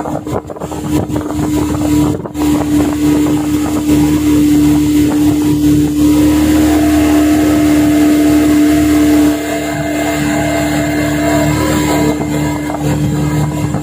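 Yamaha 40 hp outboard motor running steadily under power on a speedboat, tested with its carburetor and diaphragm freshly cleaned. The engine note holds steady, then drops a little in level and changes slightly about nine seconds in.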